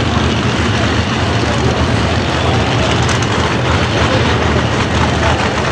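Two no-prep drag racing cars' engines idling loudly and steadily at the starting line while staging, before launch.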